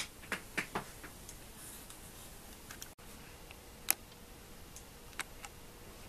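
Scattered light clicks and taps of small tools and plastic switch parts being handled on a wooden workbench, with short gaps of faint room noise between them.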